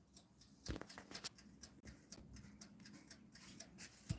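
Toaster oven's mechanical timer ticking faintly and evenly, about five ticks a second, with two louder knocks about a second in and near the end.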